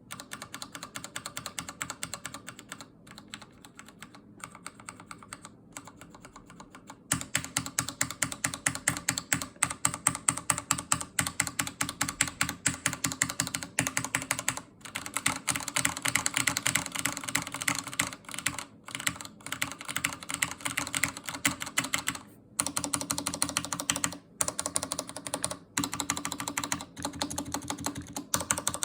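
Corsair K68 mechanical keyboard with Cherry MX Red linear switches being typed on: a fast, continuous stream of key clacks, softer for about the first seven seconds and louder after, with a few brief pauses.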